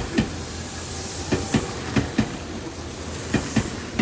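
Tobu line electric train rolling past a station platform. Its wheels clack over the rail joints in pairs of knocks, over a steady running noise.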